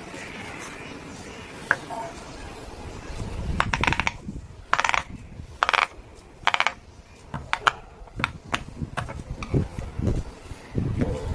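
Silicone pop-it fidget toy being pressed and handled: scattered clicks and short pops, with a cluster of louder, rasping presses in the middle.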